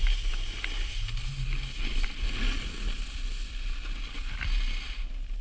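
Wind rumbling on the microphone of a camera moving downhill, over the steady hiss of sliding on packed snow, with a few faint ticks.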